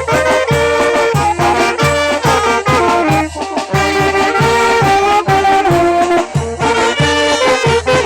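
Brass band playing a chilena: trumpets and trombones carry the melody over a steady, bouncing bass line.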